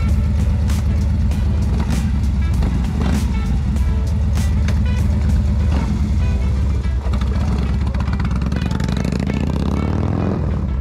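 Harley-Davidson motorcycle's V-twin engine running under background music with a steady beat; near the end the engine revs up, its pitch rising.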